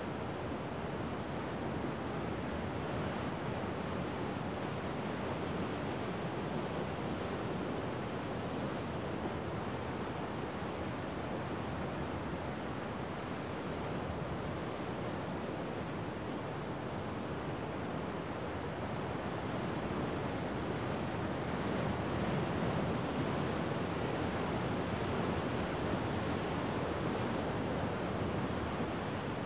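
Rough winter surf of the Sea of Japan breaking and washing over a rocky shore: a steady, continuous rush of white water that swells a little louder about two-thirds of the way through.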